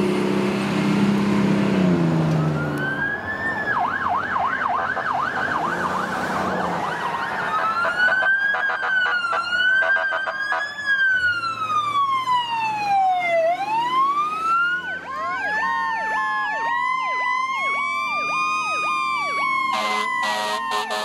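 A fire truck's diesel engine runs and pulls away, then fire apparatus electronic sirens sound. First comes a fast yelp, then slow wails that rise and fall, and near the end two sirens overlap.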